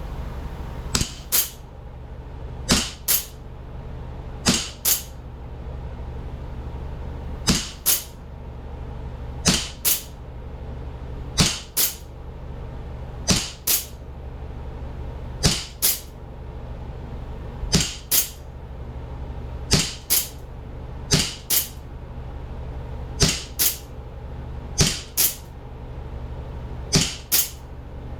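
Springfield 1911 replica CO2 pistol firing one shot after another: each shot is a sharp crack followed by a second crack a split second later, with a pair roughly every two seconds, about fourteen in all. A steady low hum runs underneath.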